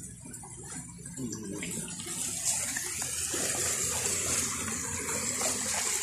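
Shallow stream water splashing and swishing as a man scoops and churns it with his hands, a steady rushing hiss that builds up about two seconds in.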